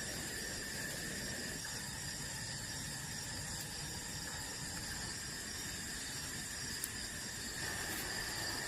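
Forest insects such as crickets chirring in a steady, constant chorus at several high pitches, the lower band growing a little louder near the end, with a single sharp click about seven seconds in.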